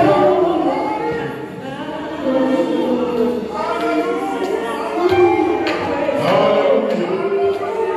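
Live gospel worship singing by a small group of voices, sung into microphones with the melody lines rising and falling continuously.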